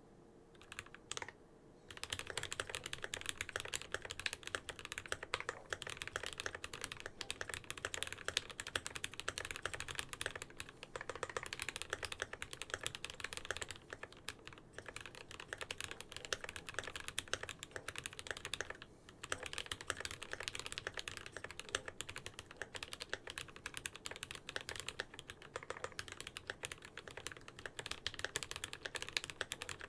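Rapid continuous typing on a GMMK Pro mechanical keyboard with lubed Gateron CJ linear switches, an FR4 plate, PBT keycaps and stock foam. A couple of single key presses come first, then steady fast typing from about two seconds in, with brief pauses.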